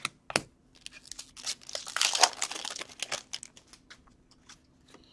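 A trading-card pack wrapper being torn open and crinkled by hand. Two sharp clicks come first, then a crackling rustle about a second and a half in that fades out after about three seconds.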